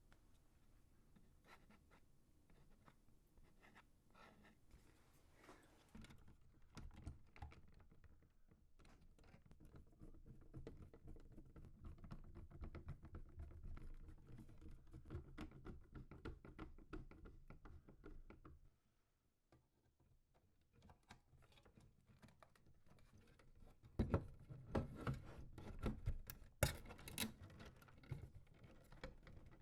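Hands handling and fitting small computer parts: soft clicks, taps and scratches of plastic and metal, with a louder run of knocks and clicks near the end.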